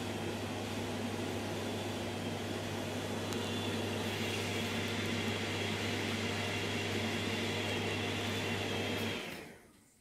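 Steady mechanical hum and fan-like whir of an ambulance's patient compartment, with a low drone under it. It cuts off about nine seconds in.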